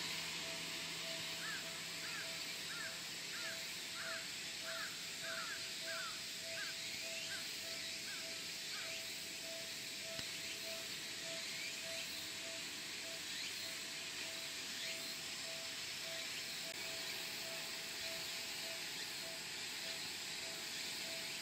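Japanese railway level-crossing warning bell ringing in a steady rhythm, a little under two strikes a second, signalling that the crossing is closed for an approaching train. A string of short falling chirps sounds over it through the first half.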